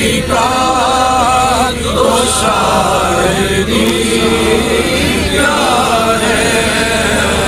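Men's voices singing a naat, an Urdu devotional poem in praise of the Prophet Muhammad, with no instruments heard. The singing moves in long, wavering held notes, phrase after phrase.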